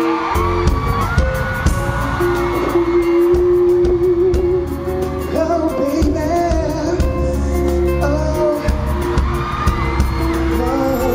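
Live pop music through a concert sound system: a heavy bass beat comes in just after the start and drops out briefly about eight seconds in, under a long held singing voice with vibrato.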